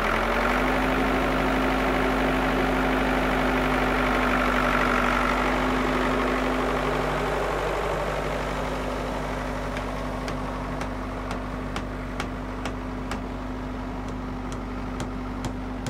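An engine running steadily at idle, a constant hum that sets in right at the start. From about ten seconds in, a light clicking about twice a second sounds over it.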